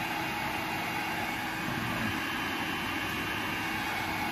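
Steady hum and hiss of running machine-shop machinery, with a faint steady tone through it and no distinct knocks or events.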